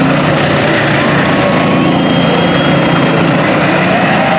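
Small engine of a kid-size mini monster truck running steadily as it spins donuts in loose dirt.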